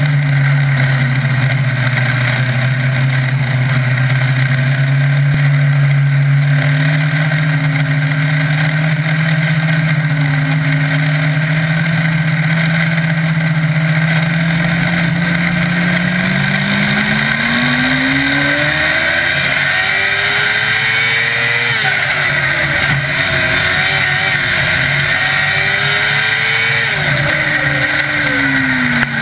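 600 micro sprint car's 600cc motorcycle engine heard from on board, running at a steady low pitch for about the first half, then revving up, easing off briefly, revving up again and dropping off sharply near the end.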